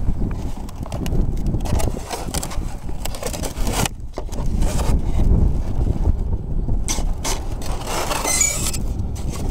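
Wind buffeting the microphone in a steady low rumble, with scattered clicks and knocks of handling.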